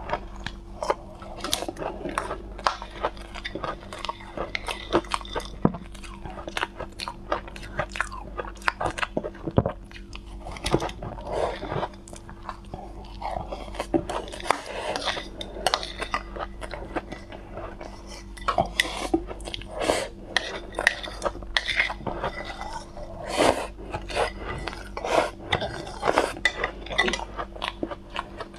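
Close-miked crunching and chewing of soft shaved ice coated in powder, with a metal spoon scraping and clinking against the bowl between bites.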